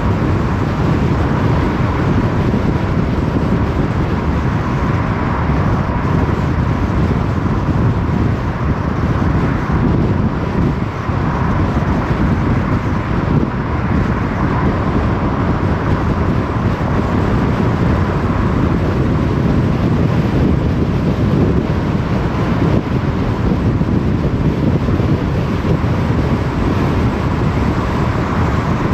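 Car driving steadily on an open road: continuous tyre, road and engine noise, strongest in the low range, holding even throughout.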